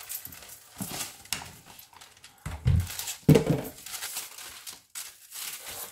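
Decoupage paper rustling and crinkling as it is handled and folded around a box on a cutting mat, with two dull thumps in the middle.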